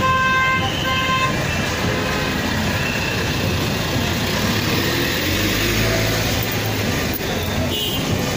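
A vehicle horn sounds twice in quick succession in the first second or so. After that comes the steady noise of motor vehicles moving slowly past, with an engine hum about midway through.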